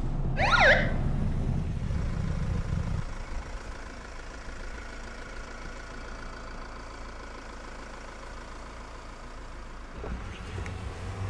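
A police siren gives a short up-and-down whoop about half a second in, over a car engine running. After about three seconds the engine settles to a quieter, steady idle as the car sits pulled over.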